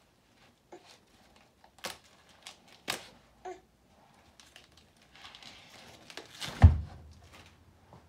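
Young coconuts being handled in a divided cardboard box: plastic wrap crinkling and a few sharp knocks against the cardboard. About two-thirds of the way through comes a heavy thump, the loudest sound.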